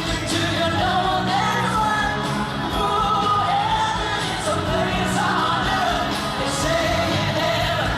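Live pop-rock band playing with a woman singing the lead vocal, loud and steady.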